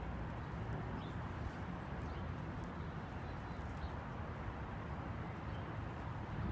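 Outdoor park ambience: a steady low rumble with faint, scattered bird chirps over it.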